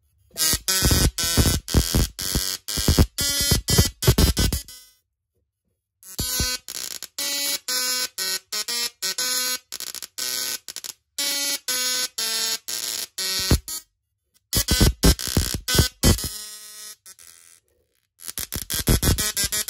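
Musical Tesla coil's sparks buzzing out a tune in a quick run of pitched, buzzy notes. The notes break off into silence about five seconds in, around fourteen seconds in, and briefly near the end.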